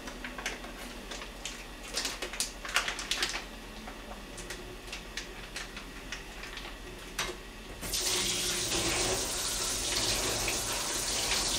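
A few light clicks and knocks, then about eight seconds in a kitchen tap is turned on and water runs steadily into the sink, to rinse the mackerel.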